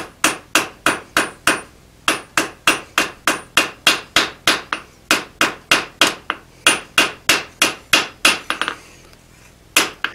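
Hand hammer striking steel on an anvil, light straightening blows on the tang of a forged drawknife blank at about three a second. There is a short pause about two seconds in, a few quick lighter taps after about eight seconds, then one last blow and a clatter as the hammer is set down on the anvil.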